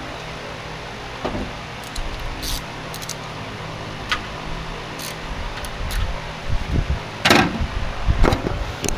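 Steady hum of a shop fan, with scattered light clicks and metallic clanks of work in the shop. The loudest clatter comes about seven seconds in, with another about a second later.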